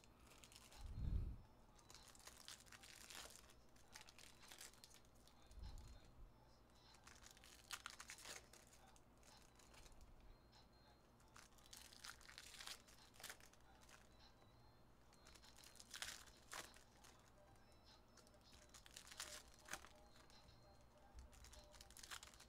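Faint handling of trading card packs and cards: scattered brief crinkling and rustling of pack wrappers and cards being sorted, with a low thump about a second in, the loudest sound.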